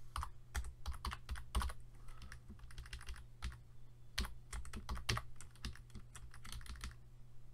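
Typing on a computer keyboard: irregular keystroke clicks with short pauses between them, over a faint steady low hum.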